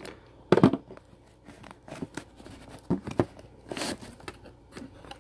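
Cardboard shipping box being opened by hand: a loud, sharp rustle as the flaps are pulled open about half a second in, then scattered knocks and rustling as the foam packing peanuts inside are disturbed.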